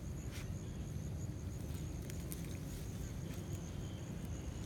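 An insect trills steadily on one high, slightly wavering note over a low rumble of wind on the microphone, with a few faint rustles and clicks.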